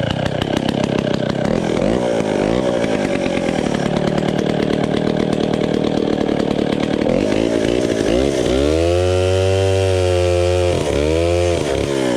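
Vintage Pioneer chainsaw running at high revs, cutting a small piece of wood. About eight seconds in the engine note turns clearer and its pitch swings down and back up, with a brief dip near the end.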